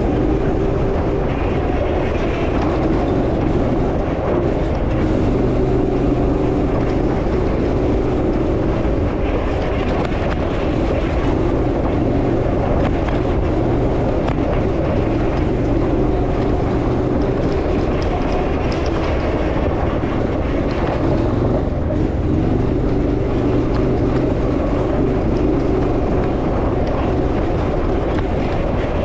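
Gemini off-road buggy's engine running steadily under load, with constant rattling and clatter from the buggy over rough ground.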